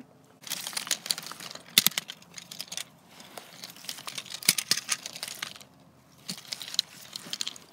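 Dry needles and twigs crackling and rustling as plastic toy monster trucks and hands push through them, in three spells of dense clicking with a few sharper snaps.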